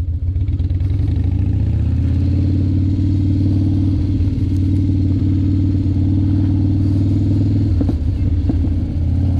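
Harley-Davidson Dyna Street Bob's air-cooled Twin Cam 103 V-twin running under way through its shorty dual exhaust, pulling up a little in pitch about a second in and then holding steady. Near the end the throttle closes and the exhaust gives a few short pops.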